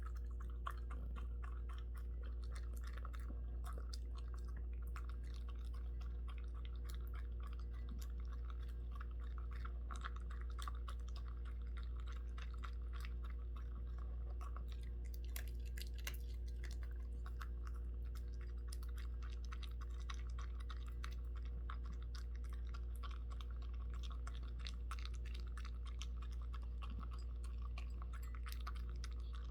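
A pet chewing its food: a steady run of small crisp clicks of teeth on food that goes on throughout, over a constant low electrical hum.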